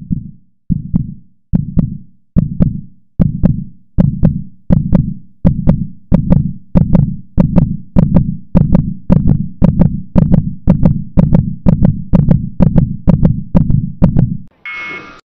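A heartbeat sound effect: low thumps that speed up from under one a second to about two a second, then stop, followed by a short high beep near the end.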